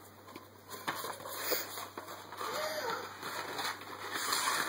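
Paper rustling and crinkling in uneven bursts as a rolled sheet of card paper is handled and unrolled.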